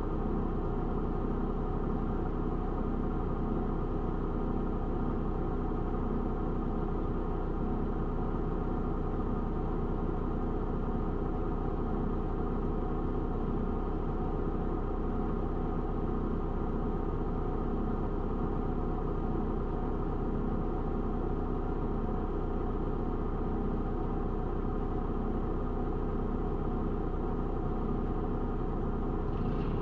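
A delivery van's engine idling steadily, heard from inside its cab, with an even, unchanging hum.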